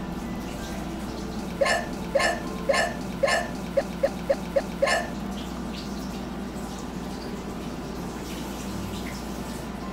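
A woman's short vocal bursts, about two a second, with four quicker, smaller ones in between, stopping about five seconds in.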